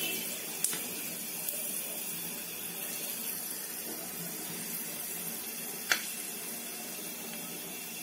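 Cumin seeds and black peppercorns sizzling steadily in hot mustard oil in a kadhai, with a few sharp pops as the spices crackle, the loudest about six seconds in. This is the tempering stage, the spices crackling ready before the onion goes in.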